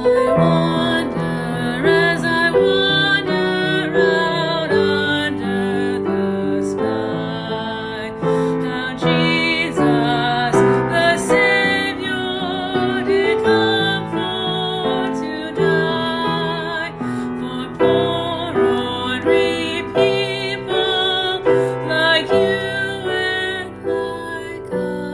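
Music with piano, its note attacks clear throughout, growing quieter over the last couple of seconds.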